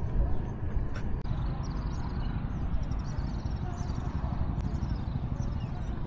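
Wind buffeting the microphone, a steady low rumble, with faint high bird chirps over it.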